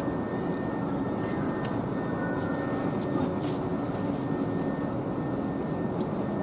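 Steady hum and whir of a double-deck electric train (ЭШ2) standing at the platform, with a thin steady high whine and a few light ticks.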